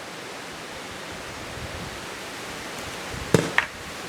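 Steady wind noise on the microphone, with two sharp knocks about a quarter second apart near the end as an atlatl dart is thrown and misses the pumpkin.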